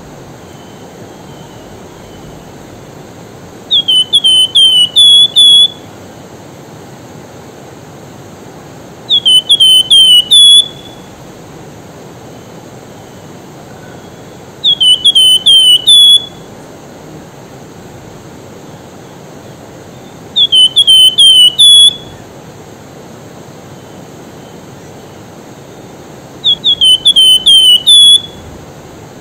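Javan fulvetta (wergan jawa) singing five loud phrases about five seconds apart. Each phrase is a quick run of four or five falling whistles ending on a higher note, over the steady rush of a river.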